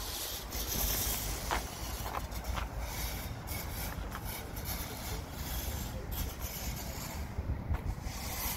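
Outdoor street ambience: a steady low rumble of passing traffic, with a few faint knocks and the voices of passers-by.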